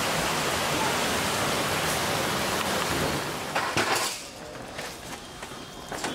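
Heavy rain pouring down, a dense steady hiss, with a few knocks near its end. About four seconds in it cuts off, leaving a quieter background with scattered light clicks.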